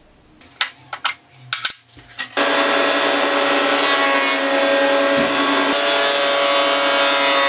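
A few light clicks and knocks, then, about two and a half seconds in, an Einhell jointer-planer's motor and cutterhead start running with a loud, steady whine while a rough board is pushed across the jointer.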